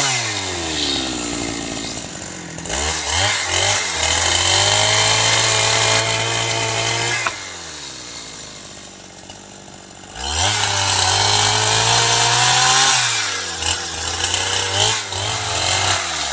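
Two-stroke Ogawa chainsaw ripping planks lengthwise from a squared log. The engine eases off right at the start and revs up again about three seconds in. It holds at high revs for a few seconds, drops to idle for about three seconds, then revs up and holds again, and falls back with a few short blips of throttle near the end.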